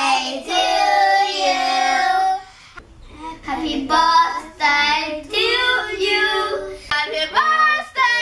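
Small groups of children singing together, with held notes. The singing breaks off suddenly twice, about three seconds in and again near seven seconds, as one group gives way to another.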